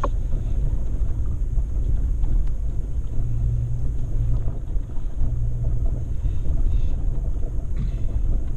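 Off-road vehicle driving, a steady low rumble of engine and tyres that swells slightly about halfway through.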